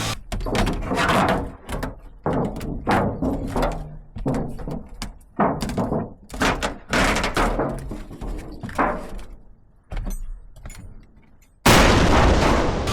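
A run of irregular knocks and bangs, each ringing out briefly. Near the end, background rock music cuts back in abruptly.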